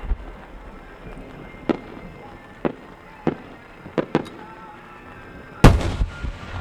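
Fireworks shells bursting in the air: about six sharp separate bangs a second or so apart, then a much louder burst near the end that rumbles on. Faint music plays underneath.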